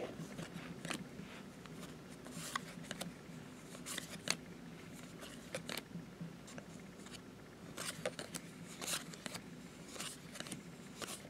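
Glossy Topps baseball cards being flipped through by hand, card slid over card: faint, irregular soft swishes and clicks.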